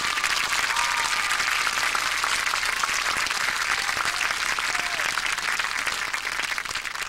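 Crowd applauding after a marching band piece ends, steady at first and dying away near the end, with a few faint calls from the audience.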